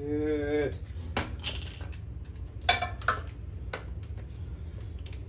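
Loose metal hardware and tools clinking as they are picked up and sorted by hand: a string of sharp, separate clinks at irregular intervals.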